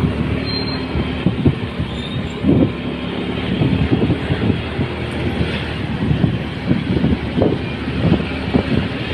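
Steady vehicle rumble with irregular low knocks and thumps scattered through it.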